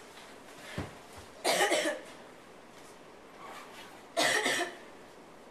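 A person coughing twice, each cough about half a second long and some two and a half seconds apart, in a quiet reading room.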